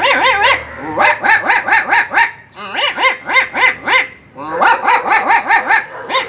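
A man imitating two dogs barking at each other with his voice: rapid barks, about four a second, in several quick runs with short breaks between.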